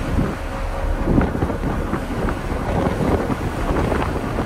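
Strong wind buffeting the microphone on a ferry's open deck in rough seas, with the rush of white water along the hull beneath it.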